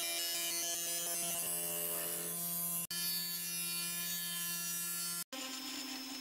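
Sainsmart 3018 PROVer CNC router's 775 DC spindle motor running at a steady pitch, driving a surfacing bit over a chipboard spoilboard. The sound cuts out for an instant twice, about three seconds in and again near the end, and is a little quieter after the second break.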